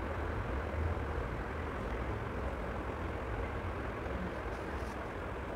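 Steady low background rumble and hiss of room noise, with no distinct events.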